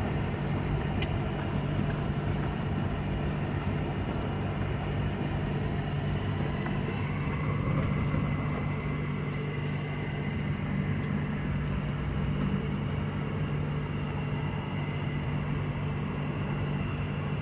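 Steady low hum of a running vehicle, unchanging throughout, with a single sharp click about a second in.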